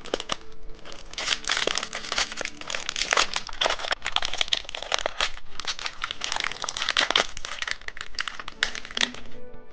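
Plastic snack packaging being crinkled and torn open by hand: a dense run of sharp crackles and rustles that carries on for most of the stretch and stops shortly before the end.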